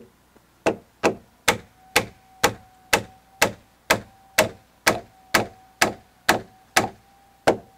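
Round-headed wooden mallet driving a wooden peg, cut slightly oversize for an 18 mm drilled hole, into a roof purlin joint. It gives steady, evenly spaced knocks, about two a second and around fifteen strikes, starting just under a second in.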